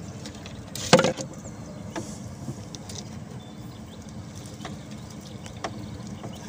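Knocks on a wooden boat as a wire-mesh keep net is handled at the gunwale: one sharp clatter about a second in, then a few light knocks, over a steady low background hum.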